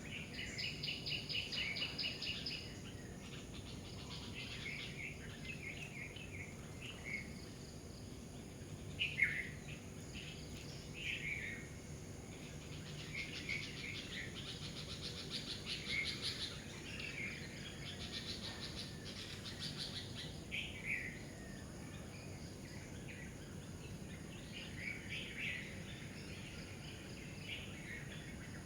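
Several wild birds calling and singing: a fast pulsed trill at the start, short downward-sweeping calls about nine, eleven and twenty-one seconds in, and scattered chirps throughout. Behind them runs a faint steady high insect hum.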